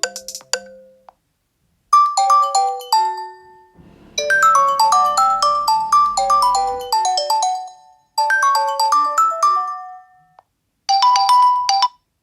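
Nokia 2.4 ringtone previews played one after another: four short melodies of quick stepped notes, each stopping after two to four seconds before the next begins.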